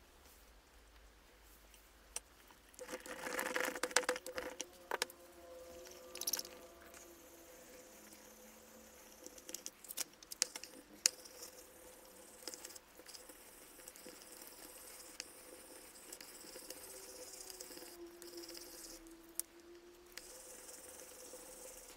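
Handling of paper on an inked printing plate: a stretch of paper rubbing and rustling about three seconds in, then scattered light clicks and taps of small metal tools and paper as the print sheet is lifted and peeled back from the plate.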